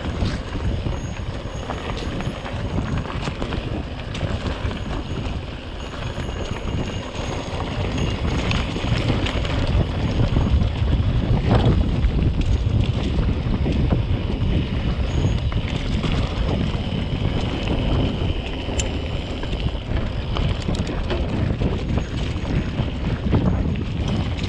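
Wind buffeting the microphone and bicycle tyres rolling over a gravel road on a fast descent, a steady rushing rumble that grows louder from about eight seconds in.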